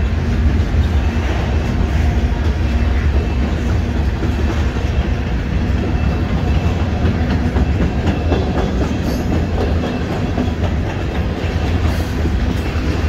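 Freight cars of a BNSF mixed freight train (boxcars, tank cars, covered hoppers) rolling past at a grade crossing: a steady sound of steel wheels running on the rails.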